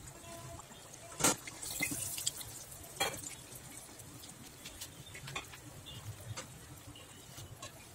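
Hot oil sizzling and bubbling around athirasam dough discs deep-frying in a steel pan, with many small crackling pops. Two sharp clicks stand out, about a second and three seconds in.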